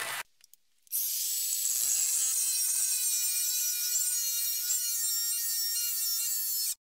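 Angle grinder with a thin cut-off disc slicing through a rectangular steel tube: a steady high whine over the hiss of the cut. It starts about a second in and stops abruptly near the end.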